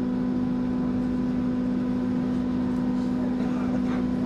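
An AEG/MAN/Siemens DT1 U-Bahn train standing at the platform, its onboard electrical equipment giving a steady hum with a few steady tones over a light rumble.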